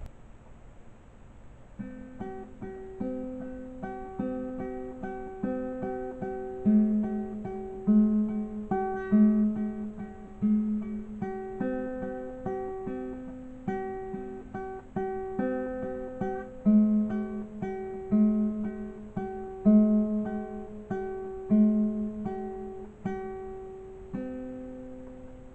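Acoustic guitar music, picked notes and chords ringing out in a steady pattern, starting about two seconds in.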